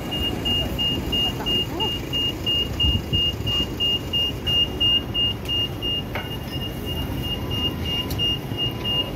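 Busy city street: steady traffic rumble and passing pedestrians, with a high electronic beep repeating about three times a second throughout.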